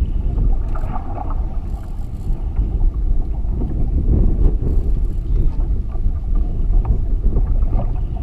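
Wind buffeting the microphone in a steady low rumble, with a few faint clicks.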